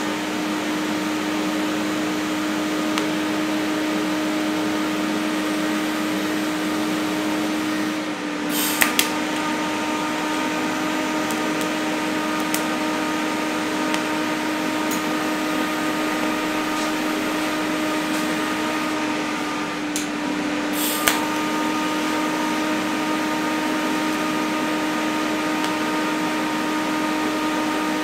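TIG welder tacking 2.5 mm 316 stainless steel sheet: a steady hum and hiss while the arc burns, broken twice, about a third of the way in and about three quarters through, by a short sharp crackle as the arc stops and strikes again.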